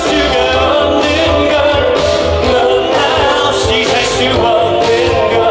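Live Korean pop music played loud through a PA: sung vocals over a band backing with a strong, steady bass.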